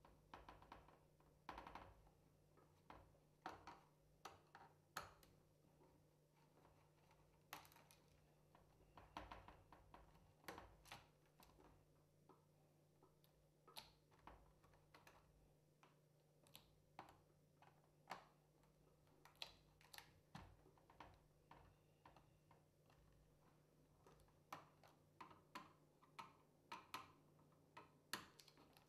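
Faint, irregular clicks and taps of a small screwdriver undoing the screws of an HP DV9000 laptop's top plate, with light handling of its plastic and metal parts, over a faint low steady hum.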